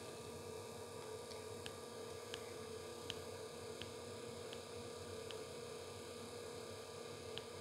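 Faint steady hum, with a short faint high tick about every three quarters of a second.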